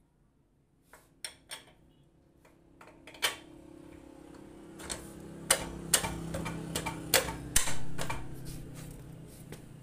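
Scattered sharp metallic clicks and knocks from a wrench working a motorcycle's rear axle nut and chain adjuster. A few clicks come in the first half; they come thicker in the second half, over a low hum.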